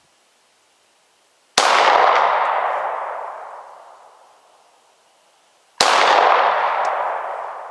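Two handgun shots about four seconds apart, each followed by a long echo fading away over two to three seconds.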